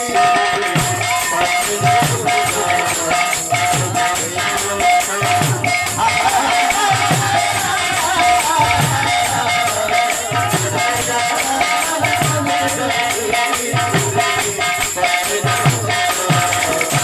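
Live kirtan folk music: two-headed barrel drums beat a steady driving rhythm, hand cymbals jingle continuously, and a melody wavers over a steady held tone.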